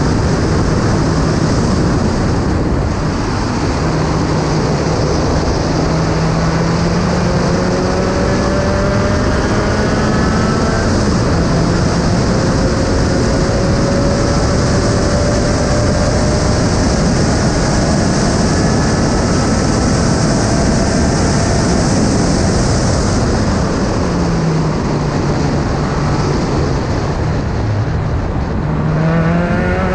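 SRF3 race car's engine heard from its open cockpit, running hard with heavy wind rush over the car and microphone. The engine note climbs slowly on the straight, falls in steps near the end as the car slows for a corner, then climbs again.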